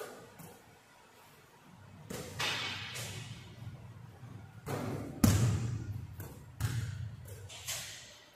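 A basketball coming off the rim and bouncing on a hardwood gym floor: a string of hollow thuds, about half a dozen, echoing through a large empty gym. The loudest comes about five seconds in.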